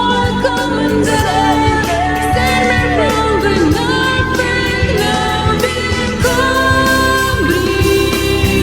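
Singing over a backing track: long held notes that slide up and down between pitches, over accompaniment with a steady beat.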